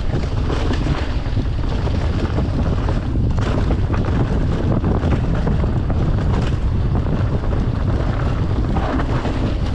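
Steady, loud wind noise buffeting a camera microphone carried on a moving mountain bike.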